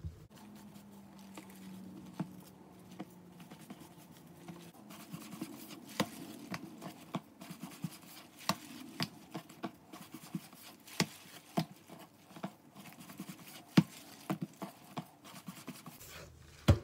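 Hands rolling and pressing cheese-filled bread dough into logs on a countertop: soft rubbing with many irregular taps and knocks of hands on the counter, over a faint low hum.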